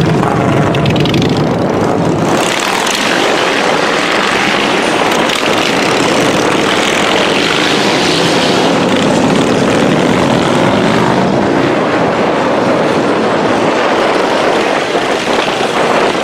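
A large group of motorcycles running together: a loud, steady engine drone. The low rumble thins out about two seconds in.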